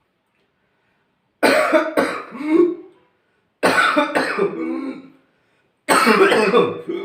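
A man imitating whooping cough (pertussis): three bouts of coughing, each running into a drawn-in whoop, as in the disease's paroxysmal stage.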